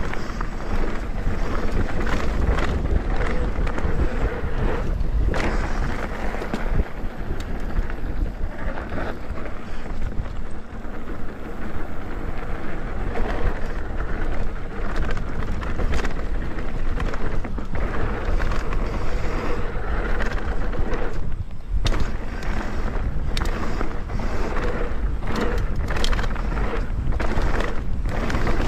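Mountain bike descending a downhill trail: tyres rolling over dirt and rocks, with frequent knocks and rattles from the bike and wind rushing over the microphone.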